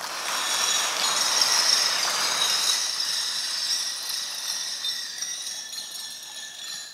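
A jingling, bell-like shimmer of several high ringing tones over a dense hiss. It swells within the first second and slowly fades away over about six seconds.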